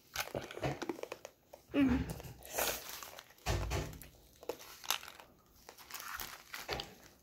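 Candy wrappers crinkling as they are handled, a run of small crackles, with a dull bump about three and a half seconds in.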